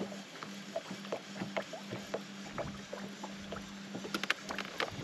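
Small waves lapping against the boat's hull in short, irregular plinks and slaps, with a quick flurry of them about four seconds in, over a steady low hum.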